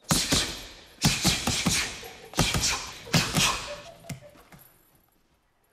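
Boxing gloves punching a hanging heavy bag: about nine hard thuds in quick groups of two or three, the last one weaker, about four seconds in.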